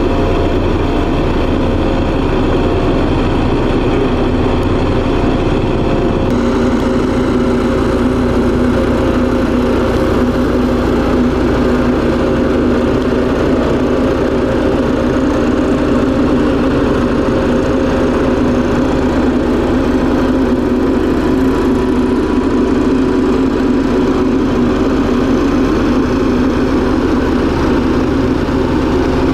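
LiuGong single-drum vibratory roller's diesel engine running steadily as the roller compacts a spread layer of crushed stone. The sound shifts about six seconds in.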